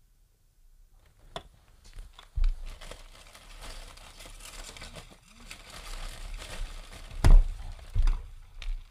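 Crinkling and rustling with many clicks and a few dull thumps, starting about a second in; the loudest thump comes about seven seconds in.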